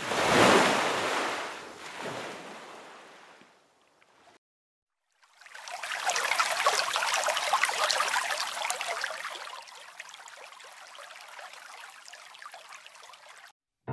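Rushing, splashing water in two stretches: a sudden surge that fades away over about four seconds, then after a short gap a longer spell of rushing water that drops lower about halfway and cuts off suddenly.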